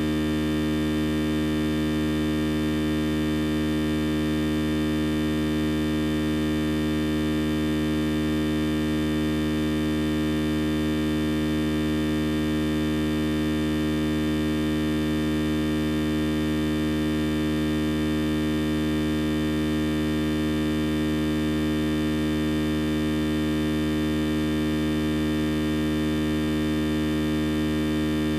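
A steady, unchanging hum made of several held tones, the strongest low, with no change in pitch or loudness.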